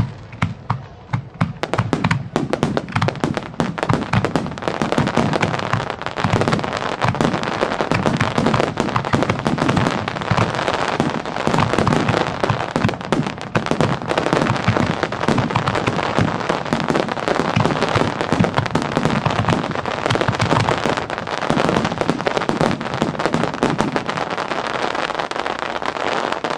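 Aerial firework shells bursting in a dense, continuous barrage, the bangs coming so fast they overlap. The barrage builds up about two seconds in and stops at the very end.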